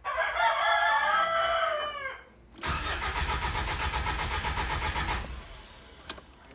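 A rooster crows once, a long call of about two seconds that falls at the end. Then the Mitsubishi Adventure's 4D56 diesel engine cranks on the starter for about two and a half seconds and does not catch: the hard-start fault being troubleshot.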